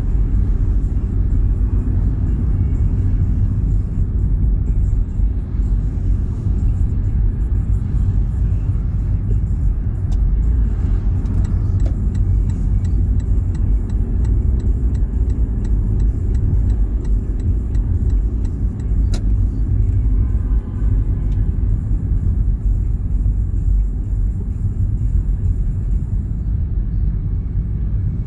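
A car being driven: steady low rumble of engine and road noise.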